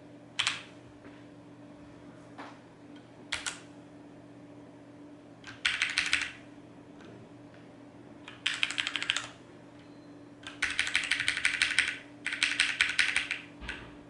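Keys typed on HyperX Alloy FPS and FPS Pro mechanical keyboards with Cherry MX Brown and Red switches. There are a couple of single key clicks, then four quick runs of rapid keystrokes of about a second each, the last two the longest.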